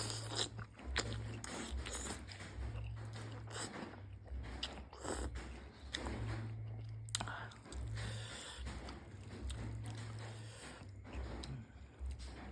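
A person eating a bowl of pork noodle soup up close to the microphone: irregular chewing, biting and mouth sounds with small clicks, over an on-and-off low hum.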